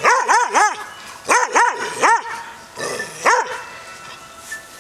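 A dog barking in short bursts while the dogs wrestle in play: three quick barks, three more about a second later, then a single bark a little past the middle.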